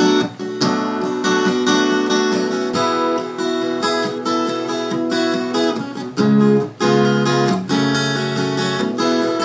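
Acoustic guitar strummed in a steady rhythm, chords ringing and changing: an instrumental introduction with no singing.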